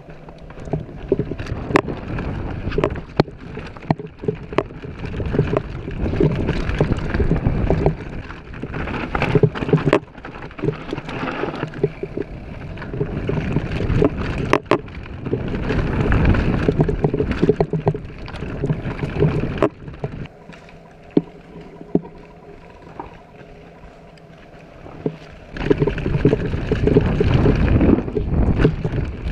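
Mountain bike descending a rocky dirt trail: tyres rumbling over dirt and stones with frequent sharp knocks and rattles, and wind buffeting the microphone. The rumble eases off for a few seconds about two-thirds of the way in, then picks up again.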